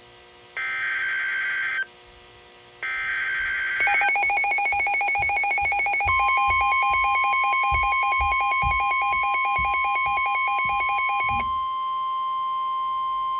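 NOAA Weather Radio EAS alert start: three short bursts of SAME data screech, then a rapid pulsing alert beep, joined about six seconds in by the steady single-pitch weather radio warning alarm tone, which holds on after the beeping stops. It announces a new warning, here a flash flood warning.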